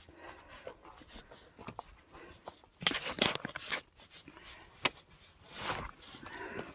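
Hiking boots scuffing and knocking on icy rock in irregular steps, with a cluster of scrapes about three seconds in, a sharp click near five seconds and a rougher scuff just after.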